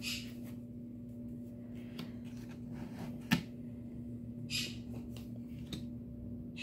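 Quiet room tone with a steady low electrical hum, a single sharp click about three seconds in, and a couple of brief soft rustles.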